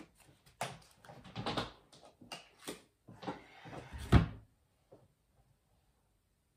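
A deck of oracle cards shuffled by hand: a run of quick, papery slaps and rustles, then one heavy thump about four seconds in, after which the handling stops.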